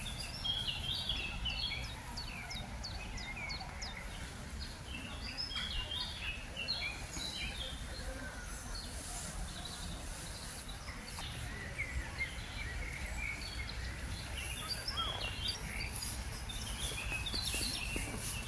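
Several songbirds singing and chirping with short, quick notes, including a run of high, falling whistles in the first few seconds, over a steady low outdoor rumble.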